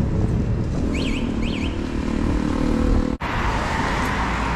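Vehicle driving: steady engine and road noise, with two short chirps about a second in. Just after three seconds the sound drops out for an instant and comes back as a brighter, steadier hiss.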